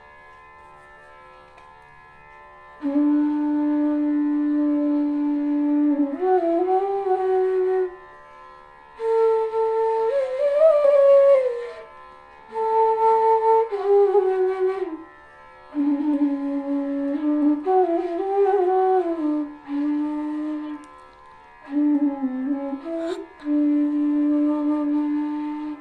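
Bamboo D bass bansuri played in slow phrases with short breath pauses between them: a long held low note, phrases that climb and fall back, and another long held low note at the end.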